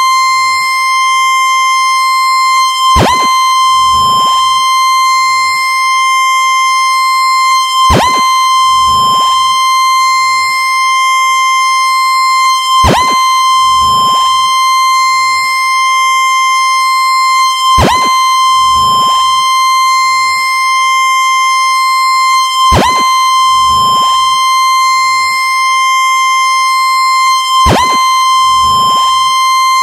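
Synthesized test tone for the mid-range of a sound system: a steady high tone near 1 kHz with its overtones. A group of falling pitch sweeps repeats about every five seconds.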